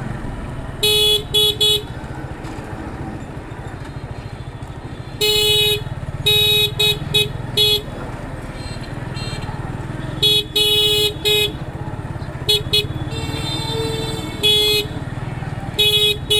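Motorcycle engine running steadily under way in town traffic, with a vehicle horn honking in quick clusters of short beeps, a few times across the stretch. About three-quarters of the way through, a longer horn of a slightly different pitch sounds once.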